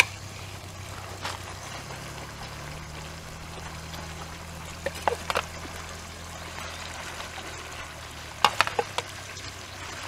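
A metal spoon clinks and knocks a few times against a kazan and an enamel bowl as pieces of stuffed woodcock are moved into the pot. Beneath it is a steady low hum with a faint trickling hiss.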